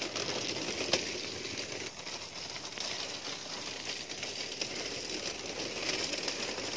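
Steady rustling and scuffing of a handheld phone moving while its holder walks, with one sharp click about a second in.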